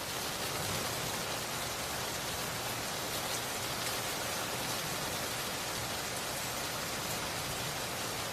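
Rain falling steadily, an even wash of sound with no let-up.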